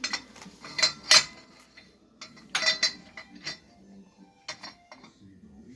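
Metal objects knocking and clinking together in a series of sharp clinks. The loudest clinks come about a second in, with another cluster a little before the middle and single clinks after.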